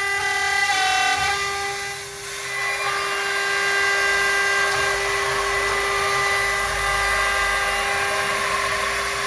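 CNC lock-milling machine's high-speed spindle running steadily with a whine of several held tones as it mills thermal-break aluminium window profile.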